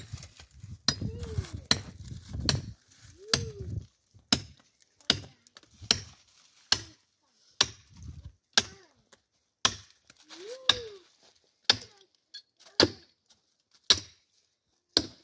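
Firewood being chopped: sharp, evenly paced strokes of a blade biting into wood, about one a second.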